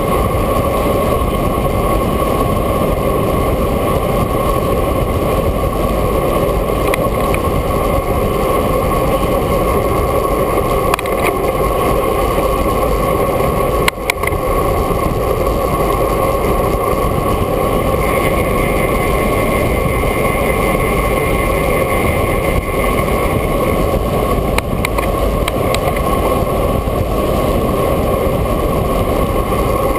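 Steady rush of wind on the microphone of a camera mounted on a moving road bicycle, with a few brief knocks.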